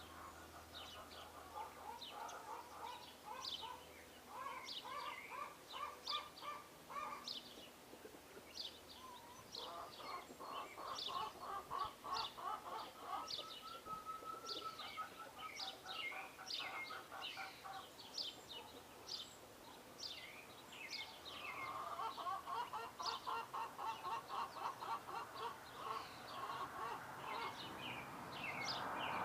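Birds chirping: many short, high chirps in quick succession, with stretches of rapid, lower trilling calls.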